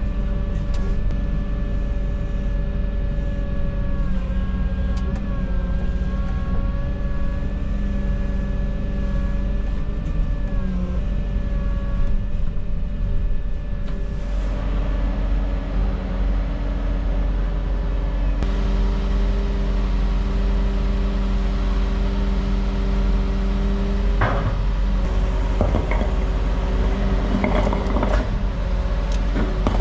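Volvo EW160E wheeled excavator's diesel engine running steadily under hydraulic work, its pitch shifting a few times. From about two-thirds of the way in there are several sharp knocks and clatters.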